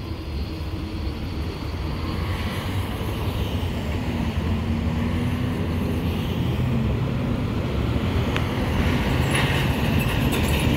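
Road traffic moving across a railroad crossing: cars and a pickup towing an open utility trailer drive over the tracks, the engine and tyre noise slowly growing louder. A few clicks and rattles come near the end.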